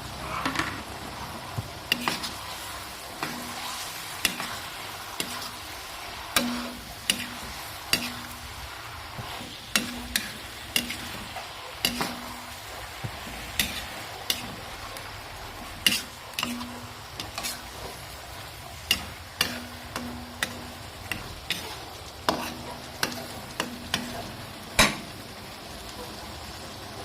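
Vegetables stir-frying with a steady sizzle while a spatula stirs them, knocking and scraping against the pan with frequent sharp clicks.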